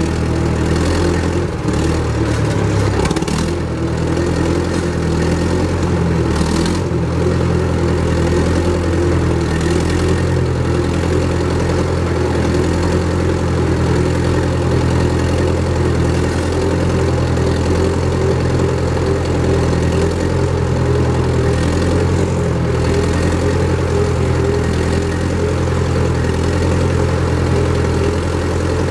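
International Harvester 350 Utility tractor engine running steadily while the tractor is driven, with a slight change in engine note in the first few seconds.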